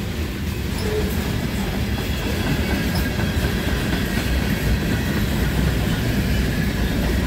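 Canadian Pacific mixed freight train of tank cars and covered hoppers rolling past: a steady rumble of steel wheels on the rails.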